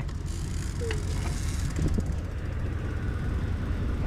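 Engine of a high-roof shuttle van running as it drives up and pulls in. It is a steady low rumble that gets a little louder near the end.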